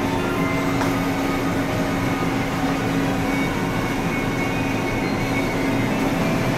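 Steady drone of a car ferry under way, heard inside the passenger deck, with a constant low hum and a few short electronic tones.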